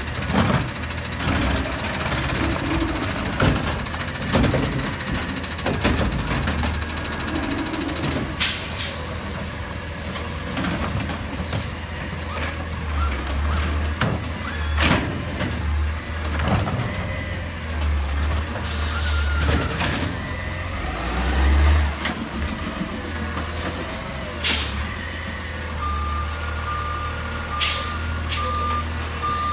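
Autocar ACX garbage truck with a McNeilus ZR automated side-loader arm working: the engine runs and rises and falls as the hydraulic arm sets a cart down and retracts, with knocks and clanks. There are two short, sharp air-brake hisses, about 8 and 24 seconds in, and a repeating beeping alarm starts near the end.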